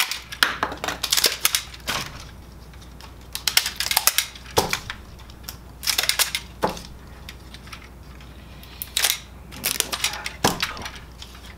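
Shipping tape being peeled off a new Kyocera FS-4200/4300 fusing unit, crackling in several short pulls, with clicks and knocks from the plastic fuser housing being turned in the hands.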